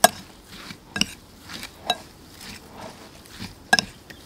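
Metal spoon stirring a chopped shallot, chili and herb mixture in a glass bowl, clinking sharply against the glass about four times between soft swishes of the moist ingredients.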